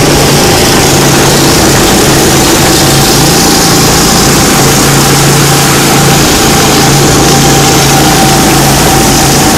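Go-kart's small petrol engine running steadily at speed, a constant droning hum with a faint higher whine, under a broad rush of wind and road noise.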